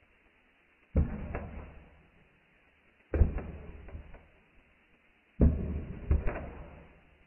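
A plastic tamper pressed into kinetic sand packed in a glass cup, three times: each press is a dull thud followed by a soft, crumbly crunch that fades over about a second.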